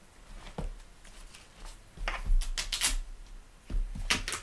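Gaffer tape being pulled off its roll and wrapped around a book's spine: several short rasping rips in quick clusters, the loudest about two seconds in and near the end.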